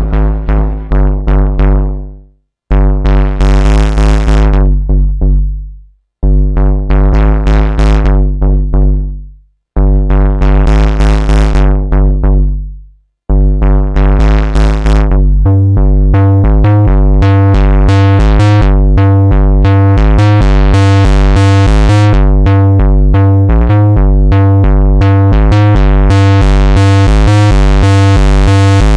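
Moog Subsequent 25 analog synthesizer playing a bright bass patch, recorded directly from the synth. Short phrases of rapid repeated bass notes, each dying away into a brief pause, then about halfway through a continuous fast run of notes alternating between pitches.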